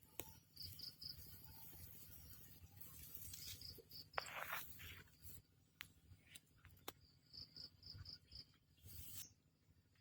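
Faint insect chirping, most likely a cricket: short high trills of four or five quick pulses, repeated three times, with a few soft clicks and rustles between.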